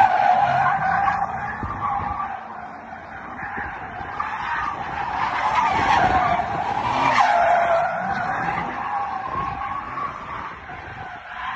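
Car's tyres squealing continuously as it drifts sideways, the squeal wavering in pitch and swelling and fading several times, loudest a little past the middle.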